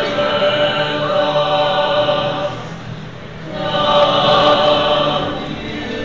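Small mixed choir of men's and women's voices singing a hymn in held chords. A brief dip between phrases comes just before halfway, then a louder sustained chord.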